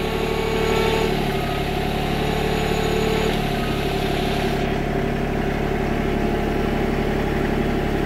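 RK24 compact tractor's diesel engine running steadily while the tractor eases forward. The tone shifts slightly about three and a half seconds in, and a high hiss drops away about a second later.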